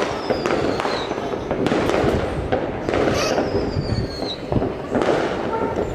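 Fireworks going off continuously: a dense crackle of bangs, with two whistles falling in pitch, one at the start and one about three seconds in.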